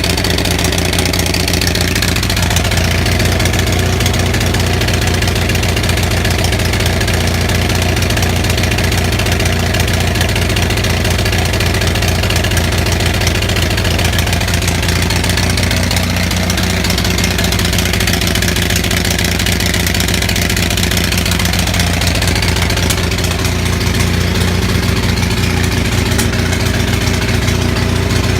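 Onan 6500 (6.5 kW) gas commercial generator running without a muffler and misfiring, which the owner traced to severely fouled spark plugs.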